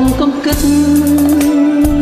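Backing track of a Khmer pop song with a steady drum beat, and one long held melody note from about half a second in.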